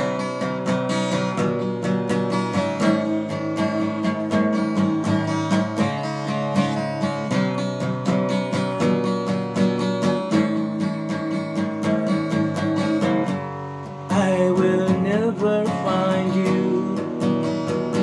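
Acoustic guitar strummed in steady chords. A man's singing voice comes in near the end.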